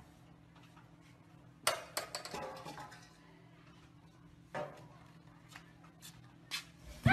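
A few short scrapes and knocks of a shovel on pavement, the loudest pair about two seconds in and two fainter ones later, over a faint steady low hum.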